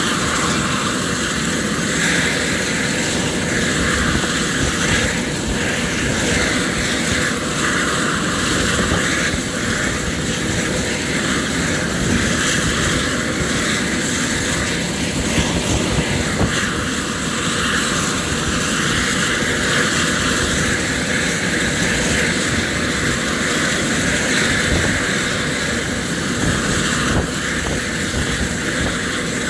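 Eurocopter EC130 helicopter running steadily on the ground, its turboshaft engine and turning main rotor giving an even, unbroken sound.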